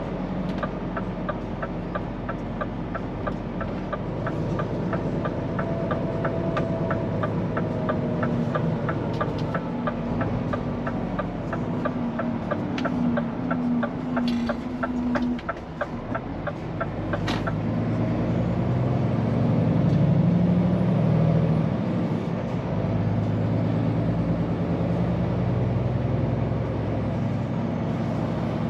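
Scania P410 truck's diesel engine running, heard from the cab, under a fast regular ticking that stops about two-thirds of the way through after a sharp click. The engine then grows louder as the truck pulls away and accelerates.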